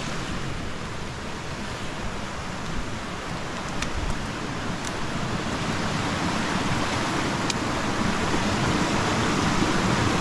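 A small woodland stream running, a steady rush of water that grows a little louder toward the end.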